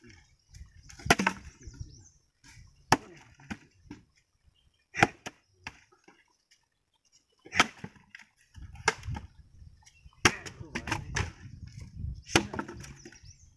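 Axe chopping and splitting firewood: about nine sharp wooden chops a second or two apart, coming faster near the end.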